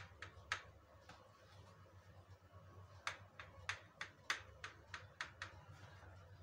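Kitchen knife sawing the crust off a slice of white bread: faint, short, crisp scratches, one near the start, then a quick run of about nine strokes, three or four a second, from about three seconds in.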